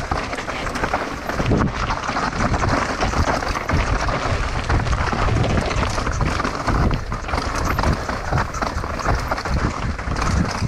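Downhill mountain bike rattling and clattering over a dirt trail, with tyre noise and a steady stream of small knocks from the bike over rough ground, plus wind on the microphone.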